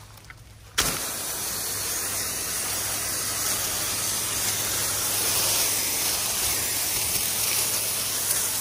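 Pressure washer spray wand rinsing a house wall: the water jet comes on suddenly about a second in and then hisses steadily, with a faint low hum underneath.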